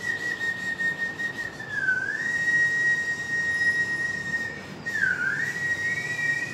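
Whiteboard marker squeaking in one long, high, steady tone as it is drawn along the board. The pitch dips briefly twice and rises slightly near the end.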